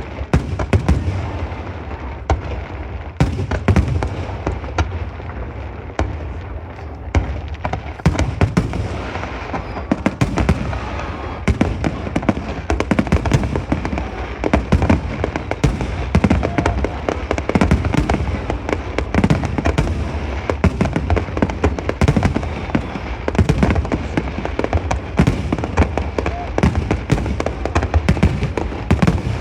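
Aerial fireworks display: shells bursting one after another in a dense barrage of booms and crackles, the bursts coming thicker from about eight seconds in.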